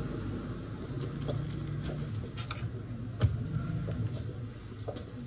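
Small handling sounds of things being moved about on a desk, with a single sharp knock about three seconds in, over a low steady hum.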